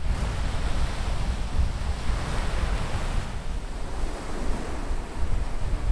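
Rough surf breaking and washing on a pebble shore in strong wind, with wind buffeting the microphone as a steady low rumble.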